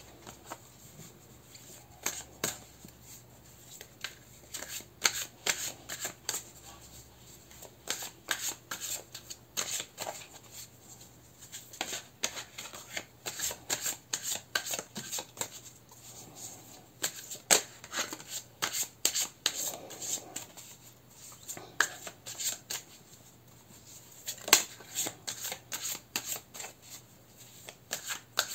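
A tarot deck being shuffled by hand, overhand, the cards flicking and slapping against each other in quick irregular runs with brief pauses between.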